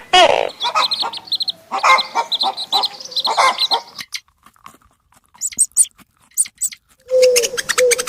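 Animal calls: a string of pitched calls for about four seconds, a pause of about three seconds with only faint clicks, then a quick run of short calls at one pitch.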